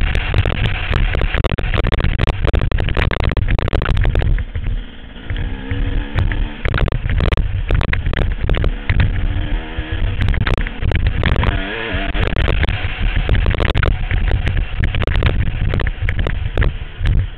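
Four-stroke motocross bike engine revving hard, its pitch rising and falling with the throttle and gear changes, under heavy wind rumble and knocks on the helmet-mounted microphone. Louder for the first few seconds, then revving up and down in shorter bursts.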